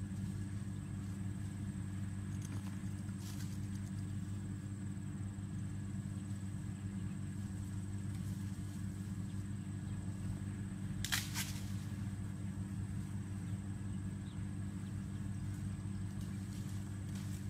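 Steady low drone of an idling engine, with one brief crackle about eleven seconds in.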